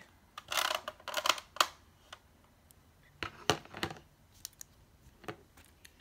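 Small metal jewelry, cufflinks and tie clips, clicking and clinking as it is handled and set down among a pile: a brief rustle near the start, then irregular clusters of light clicks.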